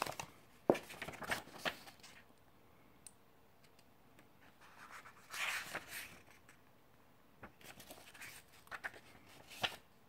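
Paper pages of an instruction booklet being turned by hand, rustling in three short bursts with sharp crisp clicks among them.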